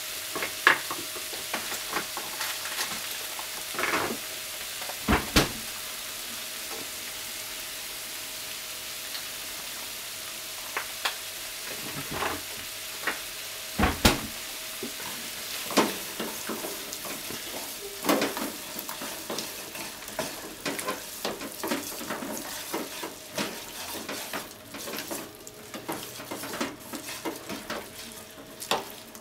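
Sliced pork and green onions sizzling steadily in a frying pan, with occasional knocks of a spatula against the pan. In the second half the food is stir-fried, with frequent scraping and clacking of the spatula on the pan.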